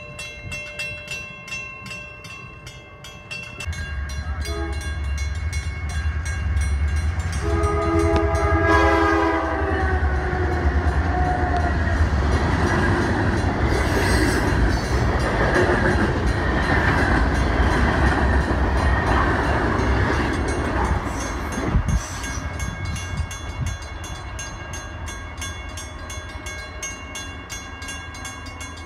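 Freight train passing a grade crossing while the crossing bell rings. A diesel locomotive comes in about four seconds in and sounds its horn for a couple of seconds, then loaded lumber flatcars run past with wheel and car noise for about ten seconds before the train noise fades near the end.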